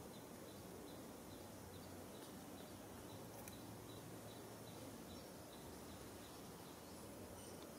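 Near silence: steady faint room noise, with a faint high chirp repeating a couple of times a second.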